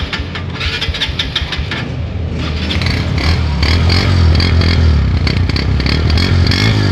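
Honda CB150F's single-cylinder four-stroke engine being electric-started: the starter cranks it rapidly for about two seconds, then it catches and runs, getting louder, with a brief rise and fall in revs near the end.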